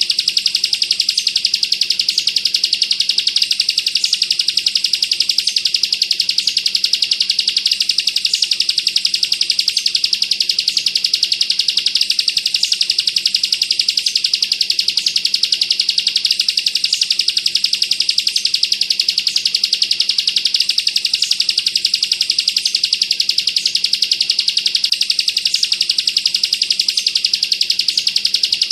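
Bar-winged prinia (ciblek), kristal type, singing one continuous machine-gun-like trill, very fast and unbroken, with faint high ticks recurring about every second and a half.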